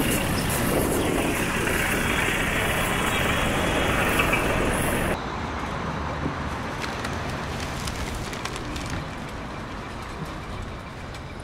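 City street ambience: a steady wash of traffic noise that drops off abruptly about five seconds in, leaving quieter street sound with faint clicks.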